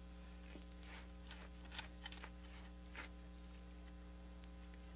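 A few faint, scattered taps and scrapes as bricks are knocked into a straight line against a level with a wooden-handled hand tool, over a steady electrical hum.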